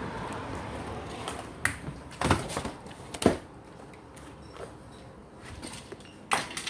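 Four sharp cracks or snaps at uneven spacing over faint background noise, the loudest a little past three seconds in.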